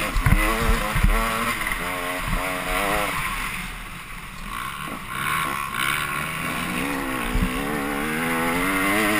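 Dirt bike engine under hard racing throttle, its pitch rising and falling as it revs through the gears. It eases off for a few seconds in the middle and winds up again near the end, with a couple of low thumps within the first second.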